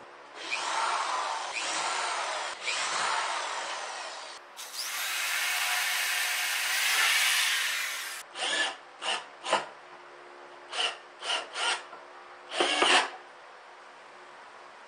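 Corded electric drill running into pine boards of a wooden frame. It runs in three longer stretches over the first half, then in a string of short bursts of a fraction of a second each.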